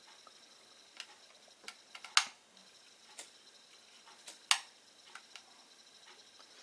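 A few light clicks and taps from handling small tools and headphone parts during soldering work, the two sharpest about two seconds in and again about two seconds later.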